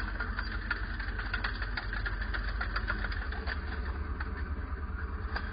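Radio-controlled scale-model Bergepanther tank driving slowly on gravel. A steady engine drone runs throughout, with rapid irregular clicks from the tracks on the gravel that thin out about halfway through.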